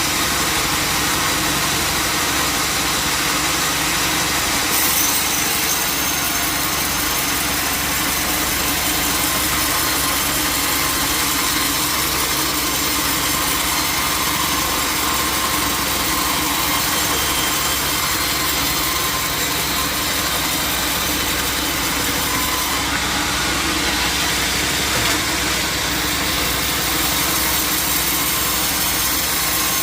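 Band sawmill running steadily, its blade sawing through jackfruit wood.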